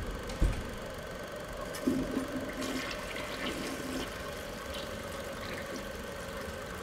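A toilet flushing, water rushing, over a faint steady hum.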